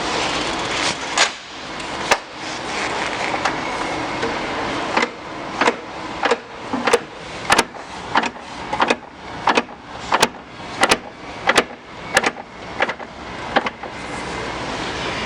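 2017 Polaris Sportsman 570 SP ATV running, with a regular string of sharp clicks or knocks, about three every two seconds, from about five seconds in until near the end, plus two single knocks early on: the clutch/transmission noise it makes when taking off.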